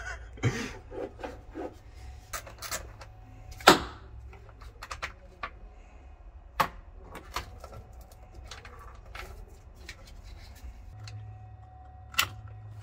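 Irregular clicks, taps and knocks of hand work on a car's wiring and parts, as connectors and pieces are worked loose. The sharpest knock comes about four seconds in.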